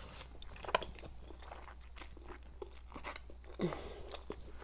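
Close-miked chewing and slurping of a mouthful of Korean noodles, with scattered wet mouth clicks and a couple of louder slurps about a second and three seconds in.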